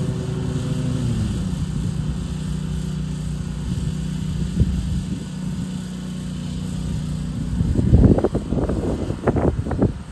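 Zero-turn mower engine running. Its pitch drops about a second in as it throttles down, then holds steady. In the last two seconds loud, irregular rumbling thumps cover it.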